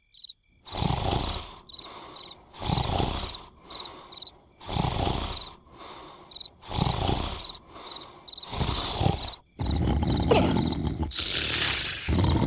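Cartoon snoring sound effect: five loud, rasping snores about two seconds apart, with crickets chirping steadily between them. About ten seconds in, a longer, continuous noisy stretch takes over.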